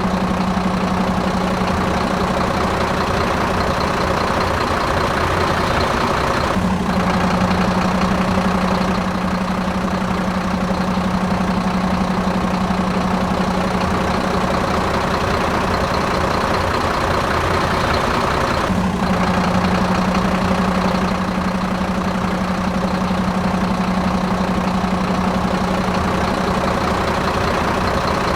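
Engine idling steadily, with a sound that repeats about every twelve seconds like a looped recording.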